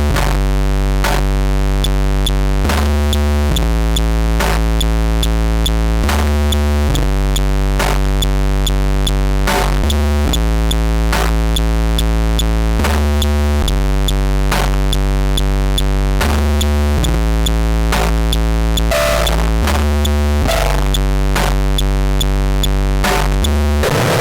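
Loud electronic music: sustained synthesizer bass notes that change every second or so, cut through by sharp percussive hits at a steady pulse, with a noisier passage near the end.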